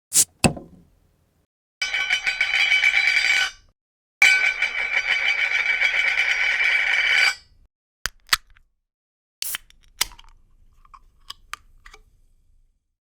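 A small electric kitchen motor, the kind in a food processor, running in two steady whirring bursts, the second one longer. Sharp clicks come before and after, like a switch and parts being handled.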